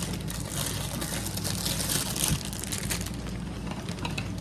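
Plastic packaging crinkling and rustling as an item is unwrapped, easing off about three seconds in, over a steady low background hum.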